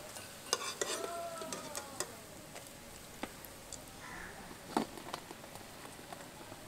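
A spatula tapping and scraping against a kadai as fried taro-leaf cups are lifted out of the oil: a few scattered clicks, the loudest about five seconds in.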